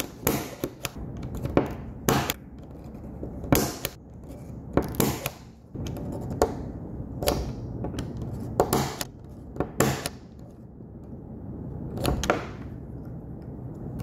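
Punch-down tool snapping Cat6 wire cores into the insulation-displacement slots of an RJ45 keystone jack, its blade trimming each off-cut. It makes a series of sharp clicks, roughly one every one to two seconds, with soft handling rustle between them.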